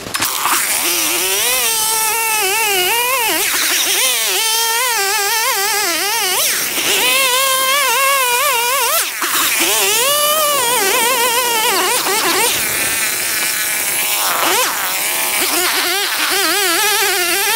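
Stihl two-stroke chainsaw running at high revs while cutting down into thick lake ice, its pitch wavering up and down as the chain bogs in the cut and picks up again, with a brief drop about nine seconds in.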